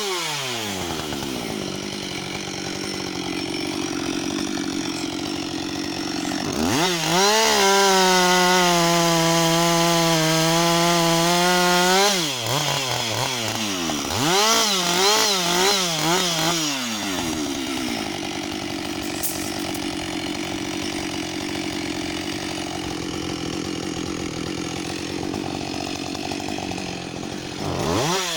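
Husqvarna 560 XP two-stroke chainsaw revving down to idle, then brought up to full throttle and held there for about five seconds. It drops back, gets several quick throttle blips, and then idles for a long stretch before revving up again at the very end.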